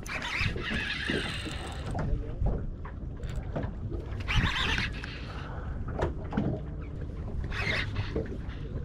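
Wind and water noise around a small fishing boat at sea: a steady low rumble with short bursts of hiss near the start, in the middle and near the end.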